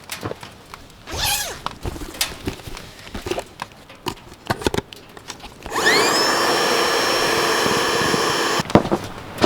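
Light knocks and handling sounds, then a small electric motor spins up with a quickly rising whine, runs steadily for about three seconds and stops abruptly, followed by one sharp knock.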